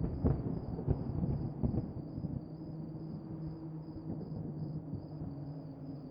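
Dark ambient horror soundscape: a few low rumbling thumps in the first two seconds, like distant thunder, settling into a steady low drone, with a faint high chirp pulsing evenly throughout.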